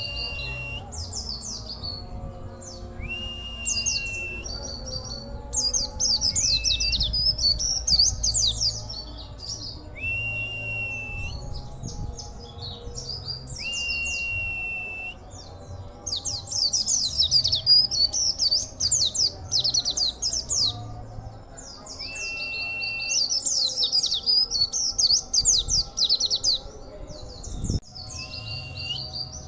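A pleci (white-eye) singing: bursts of rapid, high twittering song alternating with a held, even whistle, repeated every few seconds.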